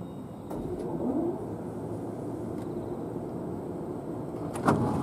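E501 series electric train standing at the platform, its equipment running with a steady hum. A single sharp clunk sounds near the end as the doors begin to open.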